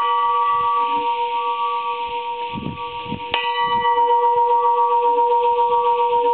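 A church bell ringing with a long, steady hum, struck again about three seconds in; the bright upper ring of the new strike fades within a second while the deep tone carries on.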